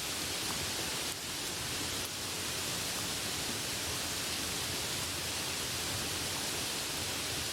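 Steady hiss of rain mixed with ocean surf, with a few faint crackles from a campfire.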